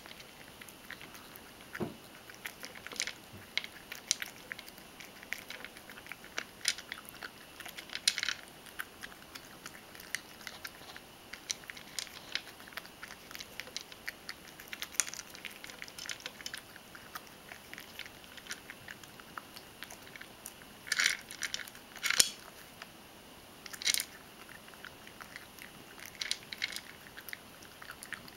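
A ragdoll cat crunching dry kibble: irregular sharp crunches as it chews, with a few louder clusters of crunching about three-quarters of the way through.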